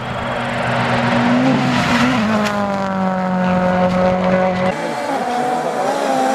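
Rally car engine at high revs, its note holding and then falling over about two seconds; about three quarters of the way in it cuts abruptly to another rally car's engine, running high with its note slowly rising.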